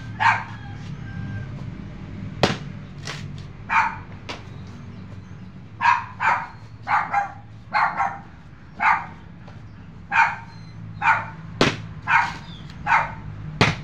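A dog barking over and over, often in quick runs of two or three, with a few sharp chops of a machete hacking into coconut husks.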